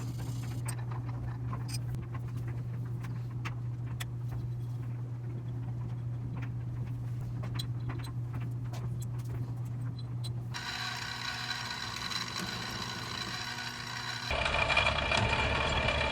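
Bench mill running and cutting a plate held on a rotary table: a steady motor hum with scattered clicks. About ten seconds in, the sound changes abruptly to a higher whine, which grows louder near the end.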